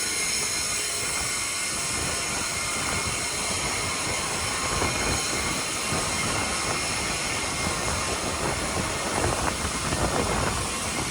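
Grain vacuum sucking up spilled corn through its hose: a steady rushing noise with a high whine over it, turning rougher and more rattly about halfway through.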